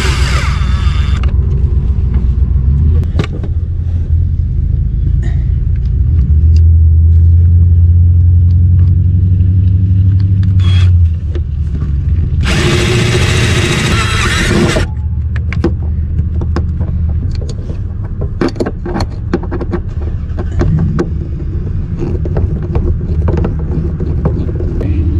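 Cordless drill driving the compressor's mounting screws in two runs, one brief at the start and one of about two seconds near the middle, with clicks and knocks of handling in between. A steady low rumble runs underneath.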